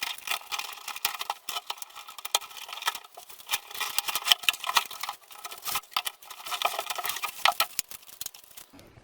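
A cardboard shipping box being opened by hand: cardboard flaps and packing material rustling, scraping and crinkling, with many irregular clicks and crackles.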